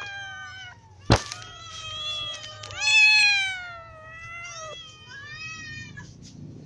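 Several cats meowing over one another, hungry and waiting to be fed, with one long, loud meow about three seconds in. A single sharp knock sounds about a second in.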